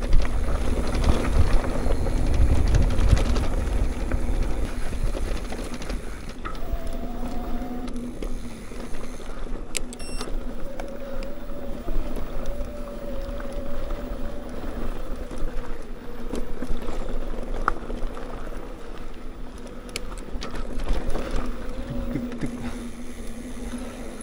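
Mountain bike riding along a dirt trail: wind buffeting the microphone and tyres rumbling, with a steady humming tone that comes and goes and a few sharp rattles from the bike.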